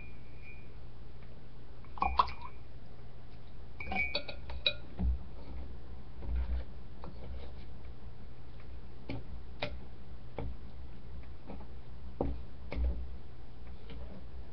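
Metal spoon stirring homemade clay dough in a glass measuring bowl, with scattered clinks and knocks against the glass over a steady low hum.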